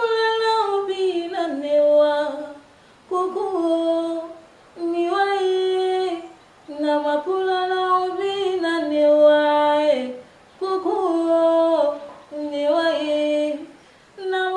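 A woman singing unaccompanied into a handheld microphone, in short phrases of held notes with brief pauses between them.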